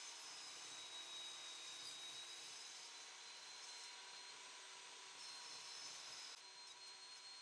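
Faint, steady whine and hiss of a power saw running while cutting wood strips to length.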